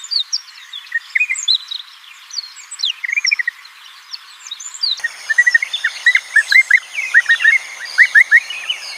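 Birds chirping and twittering, a scattering of short calls. About halfway through, the sound changes to a denser chorus of quick, repeated chirps over a faint, steady, high-pitched tone.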